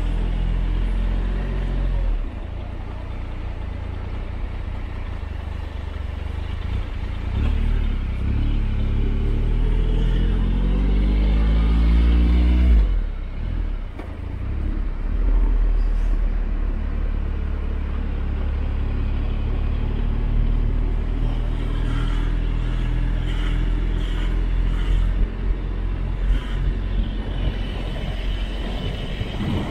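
Motorcycle engine running while riding, over a steady low rumble. Partway through, the engine note rises steadily for a few seconds, then drops off abruptly.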